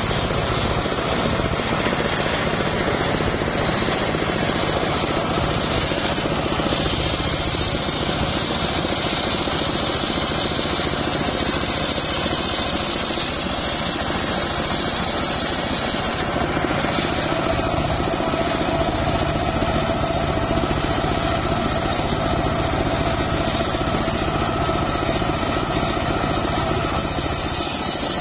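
Large circular sawmill blade running steadily and ripping a mahogany log lengthwise, the saw's drive droning underneath. A steady whine joins in a little past halfway.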